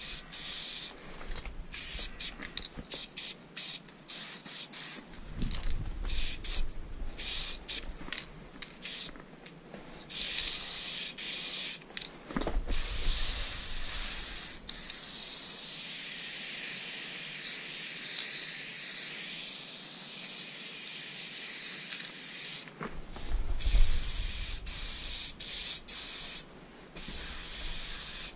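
Aerosol spray paint cans hissing as a graffiti piece is sprayed: many short bursts, then a long unbroken spray of about twelve seconds, then short bursts again. A few low thumps come in between, the loudest a little after the long spray ends.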